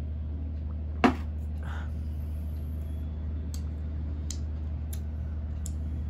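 A drinking glass set down on a table with one sharp knock about a second in, then a few faint wet mouth clicks from finger-licking, over a steady low hum.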